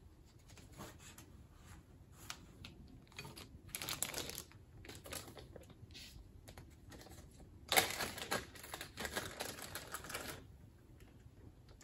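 Clear plastic zip-top bag rustling and crinkling as it is opened and rummaged through, with scattered small clicks and taps; the loudest, densest crinkling comes about eight seconds in and lasts a couple of seconds.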